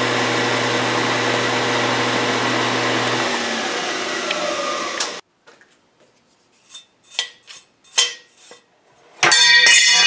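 Milling machine running with its end mill cutting a slot in steel bar, a steady mechanical whine with a low hum. About three seconds in the motor stops and the spindle winds down in falling pitch until the sound breaks off abruptly. Then come a few scattered light clicks and knocks, and a loud clatter near the end.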